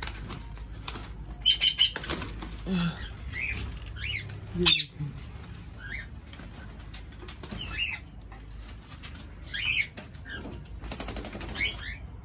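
Pet cockatiels and parrots in an aviary giving short chirps and whistling calls, scattered and rising and falling in pitch, with wing flaps as birds flutter about.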